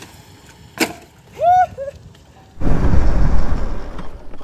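Wind rushing over the microphone of a camera mounted on a moving motorcycle: a loud, rough rush that starts suddenly about two and a half seconds in. Before it come one sharp click and a short high call that rises and falls.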